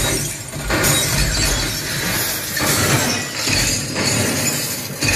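Film sound effects of window glass shattering, played back through Timber Acoustic Avon loudspeakers: a sudden crash followed by several more surges of breaking glass, about one a second.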